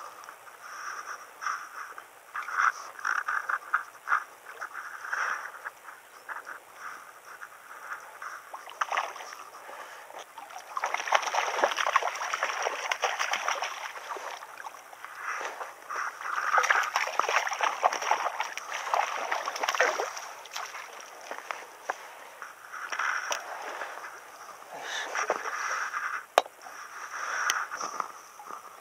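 Hooked trout splashing and thrashing at the water's surface in two long bouts in the middle, over the choppy, rhythmic winding of a spinning reel; a few sharp clicks near the end as the fish is netted.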